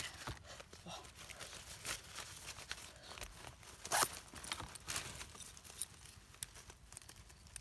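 Rustling and scraping as a fabric waist bag is handled and its zippered pockets opened, amid dry twigs and plastic litter, with scattered small clicks and a sharper scratch about four seconds in.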